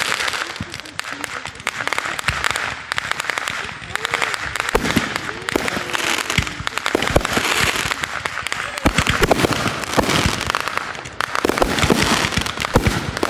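Fireworks going off in rapid succession: dense, overlapping pops and crackles with no break.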